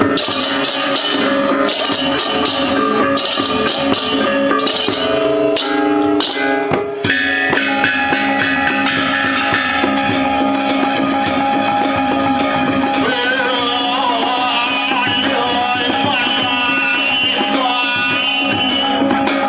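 Balinese gamelan music for the performance. For about the first seven seconds quick metallic clashes play over held ringing tones. Then the clashing stops and sustained tones carry on under a wavering high melody.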